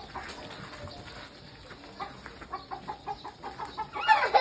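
A chicken clucking: a quick run of short, low clucks, several a second, starting about halfway through. Right at the end a child's voice cries out loudly.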